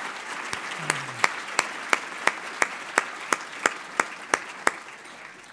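Audience applauding, the applause fading away toward the end. One person's loud, close claps stand out over it at about three a second from about a second in.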